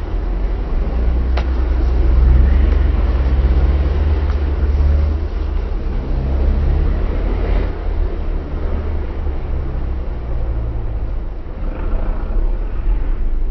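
Several banger racing cars' engines running and revving on the track: a heavy low rumble with engine notes rising and falling in pitch.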